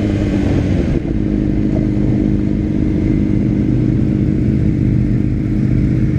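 Motorcycle engine running steadily at low revs: a 2006 Honda CBR600RR's inline-four, the bike rolling slowly in low gear.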